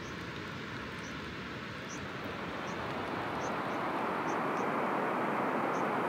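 The swollen Chenab river rushing fast and high, carrying sand and snow debris: a steady rushing of water that grows louder from about two seconds in. The rise is thought to be an avalanche-made dam upstream having just broken free.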